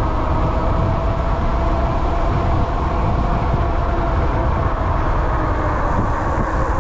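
QS273 hub motor of an 8000 W e-bike whining under way, its two-note whine slowly falling in pitch as the bike eases off, over heavy wind rumble on the microphone.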